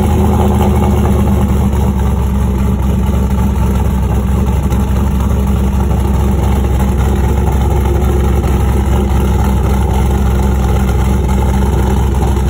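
Pickup truck's cammed V8 (stage 4 Texas Speedway truck cam) idling steadily through a new Borla XR1 exhaust with dual side-exit tips, heard close to the tips.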